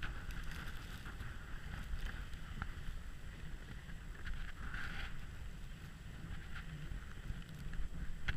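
Runners of a wooden dog sled hissing steadily over snow while the sled is pulled along, with a low rumble of wind on the microphone.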